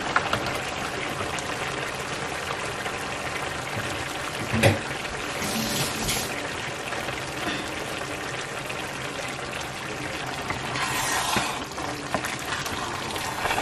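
Pot of matembele stew bubbling steadily on the hob, with one sharp knock about halfway through. Near the end it is stirred with a wooden spoon.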